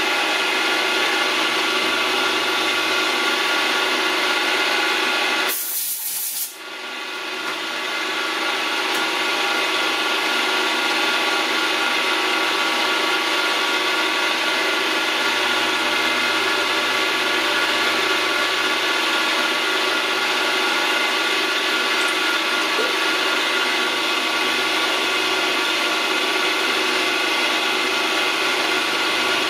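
Vertical milling machine running steadily, its motor and spindle giving a constant hum and whine. The sound dips briefly about six seconds in, then picks back up.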